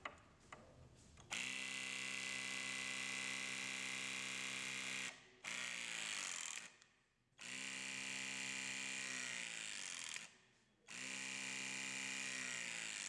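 Battery-powered swaging tool's motor running in four presses of a few seconds each, crimping a connector sleeve onto the wire-rope ends. Each run is a steady whine that drops in pitch as it stops. A few light clicks come before the first press.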